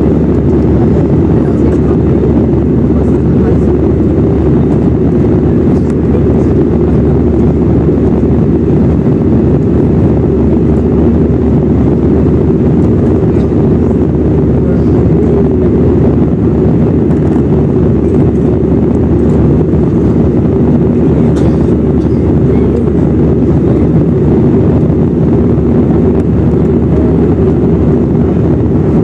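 Airbus A320 cabin noise in flight shortly after takeoff: the jet engines and the air rushing past the fuselage make a loud, steady low drone, heard from a window seat over the wing.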